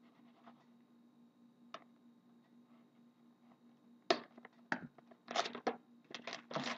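Quiet for about four seconds, then a run of sharp tearing and crackling noises as the cardboard lid of a hockey card box is pulled open.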